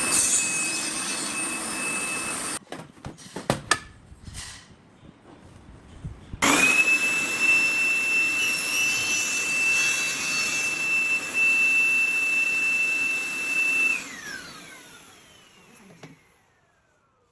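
A sliding table saw's motor running with a steady high whine, which cuts off after a couple of seconds and is followed by a few knocks and clicks. The saw then starts again, runs steadily for about seven seconds, and winds down with a falling whine as the blade coasts to a stop after being switched off.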